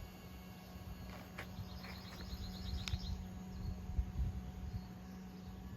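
A steady low hum with rumbling handling noise, and a bird's short rapid trill from about one and a half to three seconds in, with a couple of sharp clicks.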